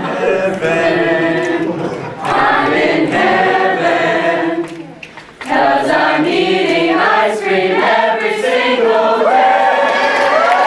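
A group of voices singing together, with a short break about halfway through and a few sliding pitches near the end.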